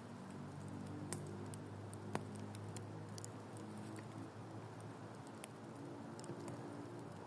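Campfire crackling: irregular sharp pops and snaps, one louder pop about two seconds in, over a steady low hiss.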